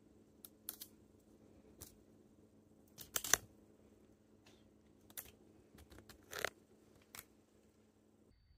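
Short, scattered plastic clicks and crackles as a cat swats and bites a thin plastic strip toy, the loudest a quick cluster about three seconds in and another a little after six seconds. A faint steady hum runs underneath and stops just before the end.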